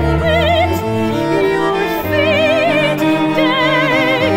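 Operatic soprano singing long held notes with a wide vibrato over an instrumental ensemble with deep sustained bass notes. The last held note, about three seconds in, is the highest and falls away at the end.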